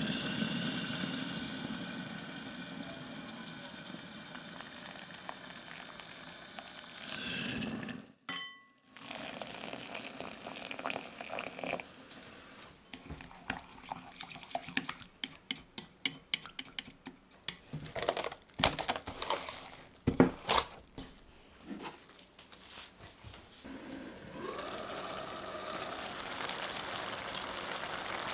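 Water poured from a steel measuring cup into couscous in a glass bowl. After a short break, a utensil stirs and fluffs the couscous with many quick clicks and scrapes against the glass. Near the end, a steel sauté pan of curry simmers with a steady hiss and light bubbling.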